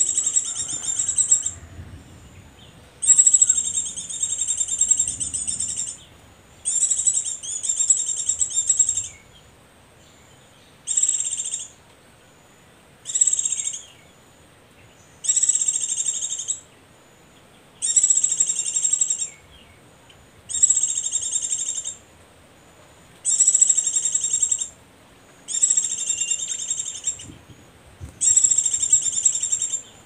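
Recorded white-eye (pleci) call played back as a bird-trapping lure: about eleven loud bursts of high, rapid twittering, each a second or two long with short pauses between, repeating evenly.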